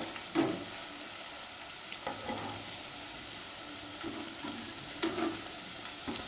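Batter-coated boiled egg pieces sizzling steadily as they deep-fry in hot oil, with a wire mesh skimmer knocking lightly against the pan three times.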